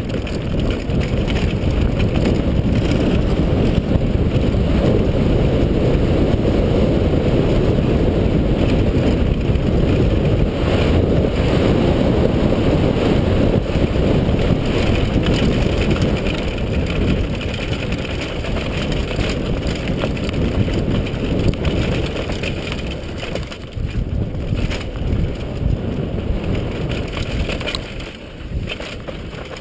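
Wind buffeting a helmet-mounted action camera's microphone as a mountain bike descends a dirt trail at speed, with the tyres rumbling over the ground and the bike rattling. The rushing noise dips briefly about three-quarters of the way through and again near the end.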